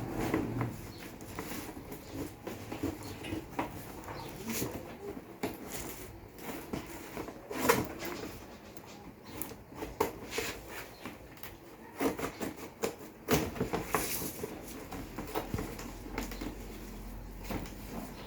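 A cardboard box and its packaging being opened and handled by hand: irregular rustling and scraping with scattered clicks and knocks, the loudest knocks about eight seconds in and again around twelve to fourteen seconds in.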